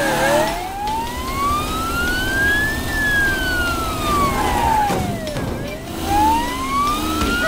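Cartoon ambulance siren wailing in a slow rise and fall: it climbs for about three seconds, falls for about two and a half, then starts climbing again near the end.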